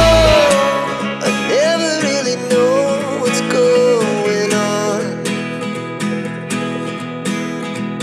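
Background music: plucked acoustic guitar in a country style, with a gliding lead melody over evenly repeating plucked notes. The deep bass drops out right at the start.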